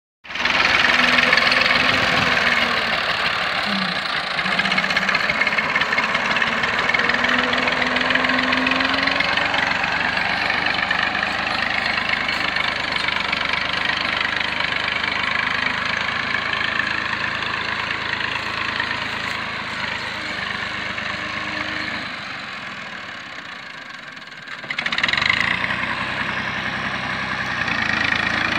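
Massey Ferguson tractor's diesel engine running steadily as the tractor drives with a tine tiller mounted. The engine note drops away for a couple of seconds near the end, then comes back up louder.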